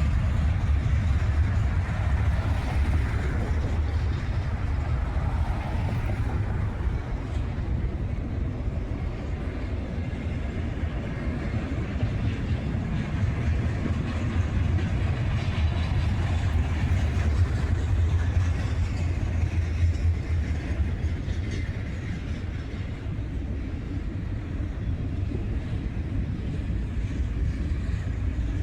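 CSX freight train rolling past on the tracks: a steady, heavy low rumble that holds without pause.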